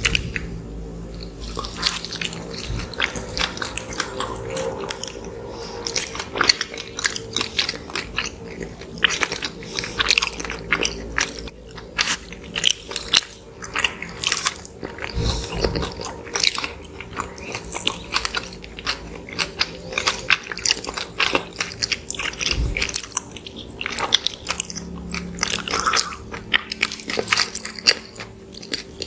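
Close-miked biting and chewing of soft microwave cinnamon rolls, with many short, irregular mouth clicks.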